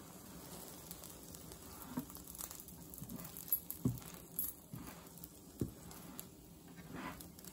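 A grilled sandwich frying faintly in butter in a non-stick pan, with several soft taps and scrapes as a nylon slotted spatula presses and nudges it.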